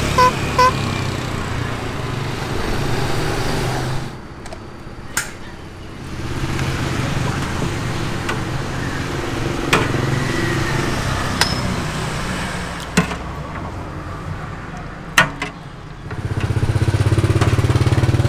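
A small engine idling steadily, dropping away briefly about four seconds in and again about sixteen seconds in. A few sharp metal clinks of a ladle against a soup pot sound over it.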